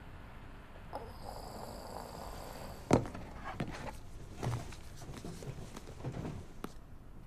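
Soft rustling of bedding and small knocks as someone shifts in a bed and picks up a phone. One sharper knock comes about three seconds in.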